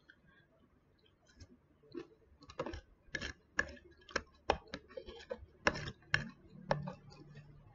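Metal spoon clicking and scraping against a plastic food container while scooping out food, a run of irregular sharp clicks starting about a second and a half in.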